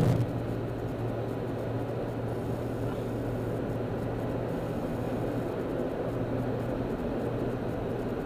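Steady road and engine noise heard inside a car cruising on a freeway: a constant low hum with tyre rumble. A short knock sounds right at the start.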